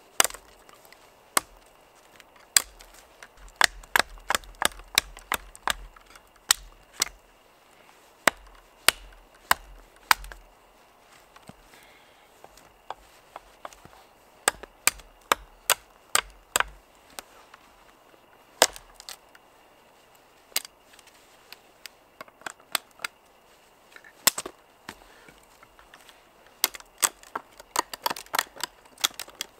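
Fällkniven A1 fixed-blade knife chopping into a thin dead sapling: sharp, irregular knocks of blade on wood, mostly one or two a second, coming faster near the end.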